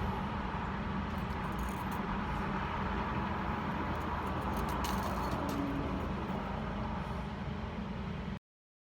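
Steady background hum and hiss with a few faint clicks, cutting off abruptly about eight seconds in.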